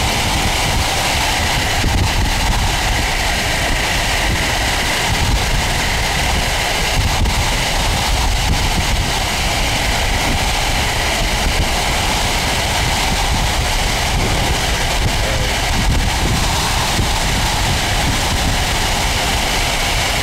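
Steady road noise from a moving vehicle, with wind buffeting the microphone.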